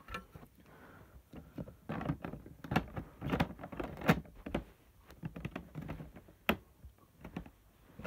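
Irregular plastic clicks, knocks and rubbing from a vacuum cleaner's parts being handled and pushed back into place close to the microphone, with a few sharper knocks about two, three and four seconds in and another near six and a half seconds.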